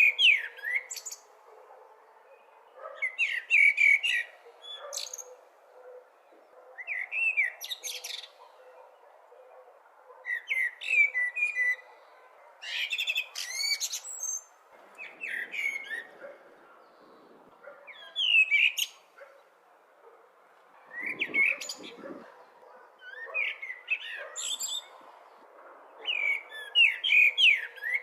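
A blackbird singing, repeating short song phrases every two to three seconds. Each phrase is a lower warbled run of notes that ends in a high, thin twitter.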